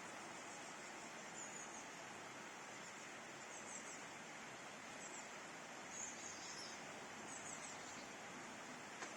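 Steady, quiet hiss of rain, with a small bird giving short high chirps about six times.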